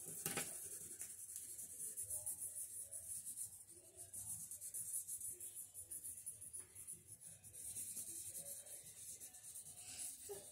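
Felt-tip markers scratching and rubbing on paper in many quick, faint strokes as several children colour at once.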